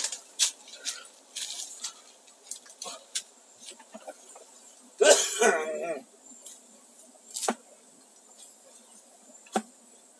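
Scattered sharp crackles and snaps from the burning smoke torch and dry brush. About five seconds in, a person makes a short wavering vocal sound, like a cough.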